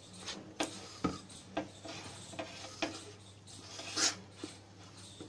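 Hand rubbing and mixing dry flour with a little oil in a steel bowl: a run of soft, irregular scrapes and taps as the fingers brush through the flour and against the metal, the loudest about four seconds in.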